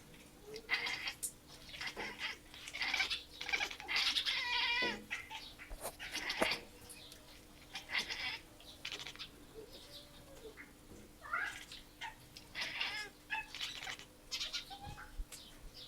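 Two domestic cats chirping and chattering in a series of short calls, with a longer trilling call about four seconds in. The calls are aimed at an animal the cats have spotted outside the window: excited prey-watching chatter.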